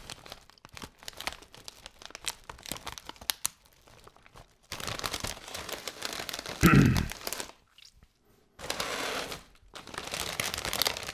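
Plastic crisp packets crinkling and rustling as they are handled, with one loud thump about two-thirds of the way through.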